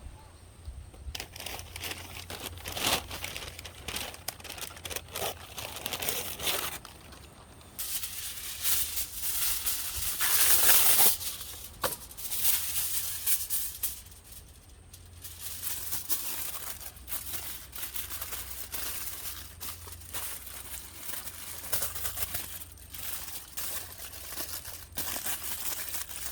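Crinkling and crumpling of wrapping material in irregular bursts, loudest about ten to eleven seconds in.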